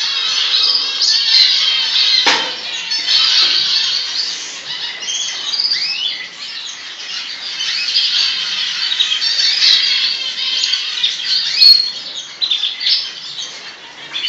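Canaries chirping and singing in a continuous high twitter of trills and calls.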